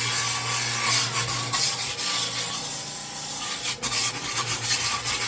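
Rented drum floor sander running over wooden deck boards, grinding the old stain off. A steady low motor hum sits under loud, even scraping noise.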